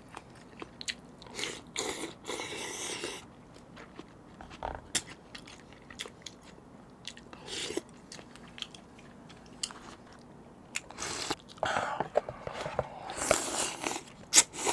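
Close-miked mouth sounds of someone eating spicy seafood noodles: irregular chewing with small wet clicks, and two longer, louder spells of eating, about two seconds in and again near the end.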